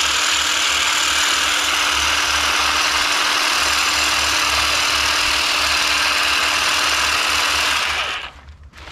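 Ryobi electric hedge trimmer running steadily as it shears the new candles off the top of a mugo pine, with a steady hum under the blade noise; it shuts off about eight seconds in.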